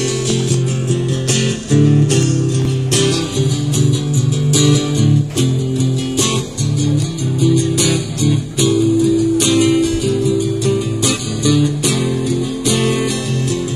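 Live band playing an instrumental intro led by a strummed acoustic guitar, with regular strokes and sustained chords and no singing.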